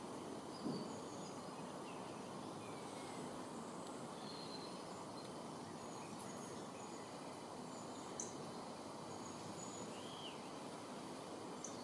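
Steady outdoor background noise with faint, scattered chirps and short whistles of small birds. There is a brief thump about a second in.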